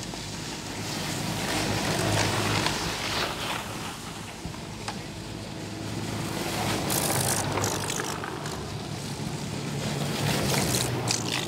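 Electric snowmobiles driving past one after another on a snow trail: a steady low hum under a running hiss, swelling as each one nears and passes.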